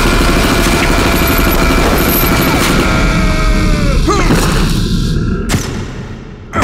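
Sustained rapid gunfire, a machine-gun barrage of film sound effects mixed with steady tones. About four seconds in the tones slide downward and the firing thins out, then a sharp single bang comes about a second later and another at the very end.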